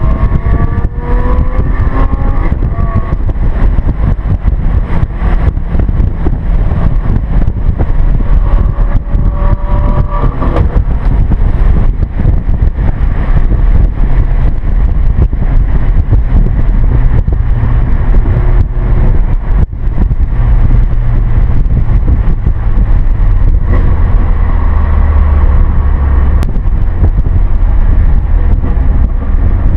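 Car in motion heard from inside the cabin: steady low road and wind rumble, with an engine's note rising in pitch as it accelerates near the start and again about a third of the way through.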